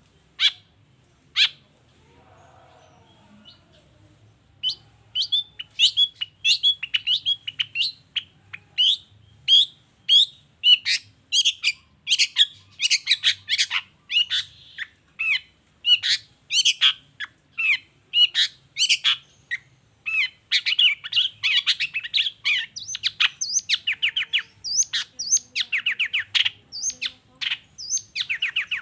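Long-tailed shrike (cendet) singing: two sharp calls near the start, then from about five seconds in a fast run of short, sharp repeated notes about two a second, growing denser and more varied in the last third.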